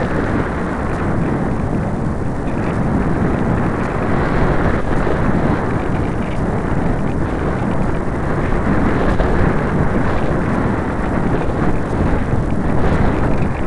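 Airflow buffeting the microphone of a camera mounted on a light thermal glider's wing in flight: a loud, steady rumble and rush of wind noise.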